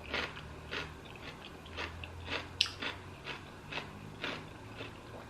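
A person chewing a mouthful of food: a run of short wet clicks and smacks, about two a second, with one sharper click about halfway through.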